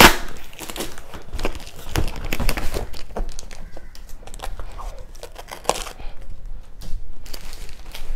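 Cardboard shipping box being torn open by hand: irregular ripping and crinkling of cardboard and packing tape, with a sharp snap right at the start.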